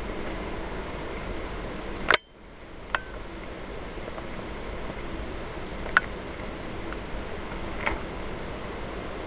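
Steady hiss of a camcorder's background noise, broken by a few sharp handling clicks. The loudest click comes about two seconds in, and the hiss drops away briefly after it, with smaller clicks about three, six and eight seconds in.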